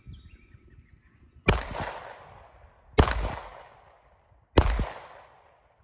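Three gunshots from a firearm, about a second and a half apart. Each sharp crack is followed by a long fading echo.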